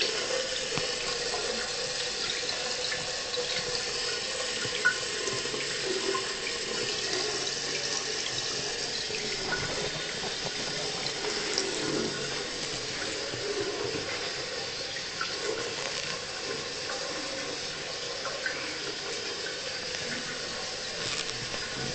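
Water running steadily from a tap into a bathroom washbasin, with a short knock about five seconds in.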